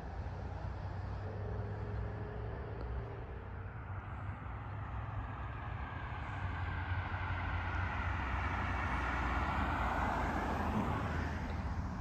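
Road noise inside a moving car: a steady low rumble of engine and tyres, growing louder in the second half.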